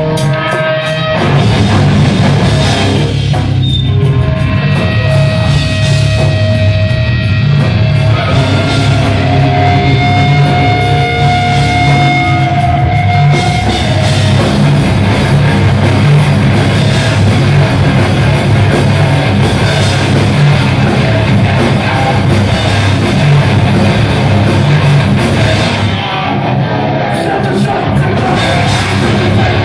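Hardcore/metal band playing live: distorted electric guitars, bass guitar and drum kit, loud through the hall's PA, with the band coming in about a second in.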